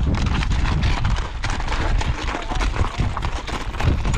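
Horses walking over stony desert ground, hooves clopping in an irregular stream of knocks, over a steady low rumble of wind on the microphone.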